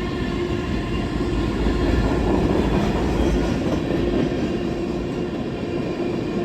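A passing empty CSX freight train, its cars rolling by on the rails in a steady, loud rumble with a faint clatter. It swells a little a couple of seconds in.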